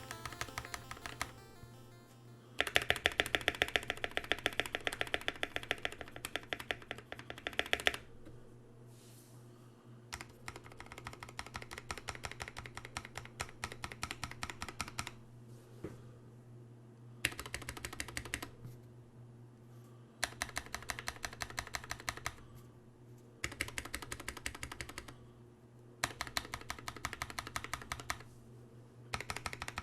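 Drop Carina 60% mechanical keyboard, built with NovelKeys Cream linear switches and POM jelly keycaps, being typed on in fast runs of keystrokes lasting several seconds each, with short pauses between runs.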